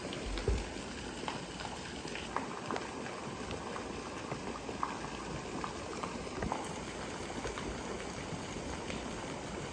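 Steady outdoor hiss, like running water, with scattered small clicks and a soft low thump about half a second in.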